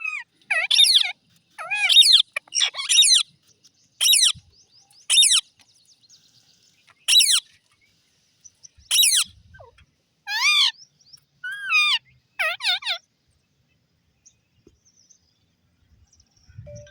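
Birds calling loudly: about a dozen separate pitched calls with wavering, bending notes, coming in quick bursts and stopping about two-thirds of the way through.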